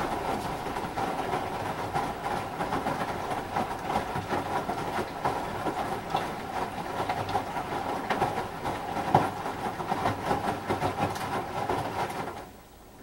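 Samsung WD136 front-loading washer-dryer's direct-drive drum tumbling a load of clothes in water, with rhythmic sloshing and splashing as the laundry falls. About twelve seconds in the drum stops and the sound drops away.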